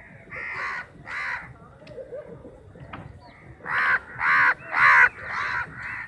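Crows cawing: two harsh caws, then after a pause of about two seconds a run of about five caws in quick succession, the middle ones loudest.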